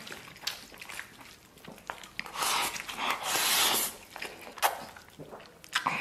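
A person slurping up a mouthful of glass noodles, a loud sucking hiss in two pulls a couple of seconds in, with wet chewing and small clicks around it.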